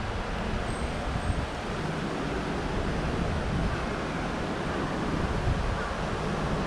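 Wind buffeting a GoPro's microphone, a steady low rumble and hiss over street background noise, with no distinct sound standing out.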